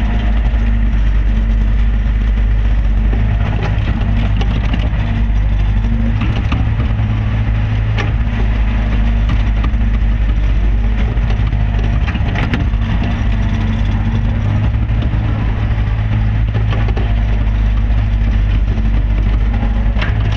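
Caterpillar hydraulic excavator's diesel engine running steadily at working speed, heard loud from inside the cab, with a few sharp knocks from the bucket and boom as it digs sand.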